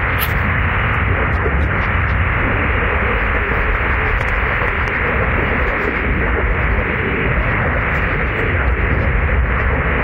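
Waterfall in heavy monsoon flow: a loud, steady rush of falling water with a deep rumble underneath.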